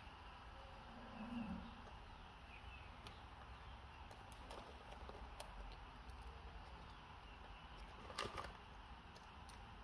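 Quiet room with faint clicks and light crinkling as a pet monkey pulls apart bread beside a plastic bread wrapper. A sharp crackle comes about eight seconds in, and a short low sound about a second in.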